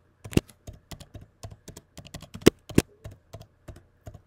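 Computer keyboard typing: a run of quick key clicks, about five a second, with a few louder keystrokes in the middle.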